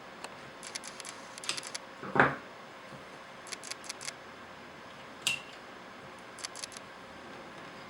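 Light plastic clicks and taps from handling a copier developer unit's parts. There is one louder knock about two seconds in and a sharp click about five seconds in.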